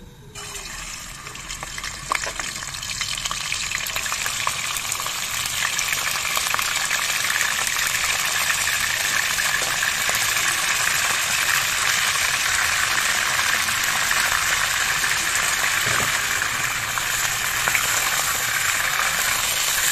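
Chicken pieces frying in very hot oil in a non-stick frying pan: a loud sizzle that starts suddenly as the chicken goes in, builds over the first few seconds, then holds steady.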